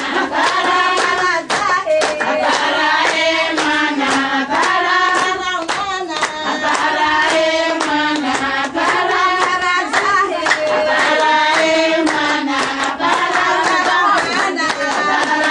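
A group of women singing together with hand clapping.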